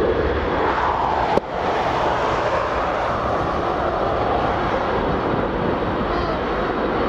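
Boeing 747-400's four jet engines at high thrust, a steady roar as the quadjet rolls down the runway on its take-off run, heard from behind. There is one brief click about a second and a half in.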